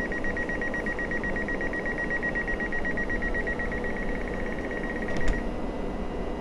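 Door warning beeper on a PESA Dart passenger car: a rapid, high-pitched beeping that signals the doors are about to close. It stops about five seconds in with a short thump. Under it runs a steady low hum from the train.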